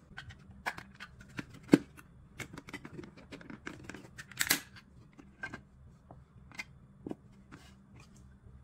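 Clicks and scraping of plastic as a small screwdriver pries open the snap-fit case of a 24 V switch-mode power supply, with several sharp snaps of the latches. The loudest snap comes a little under two seconds in, and a longer scrape about four and a half seconds in.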